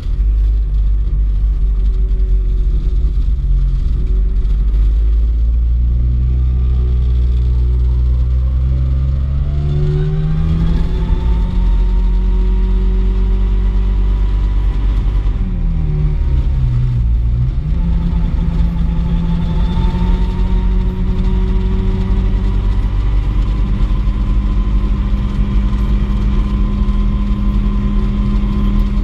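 Turbine engine of a Mosquito ultralight helicopter running with its rotor turning, a heavy low rumble under a steady whine. The pitch rises about a third of the way in, dips briefly a little past the middle, then climbs back and holds steady.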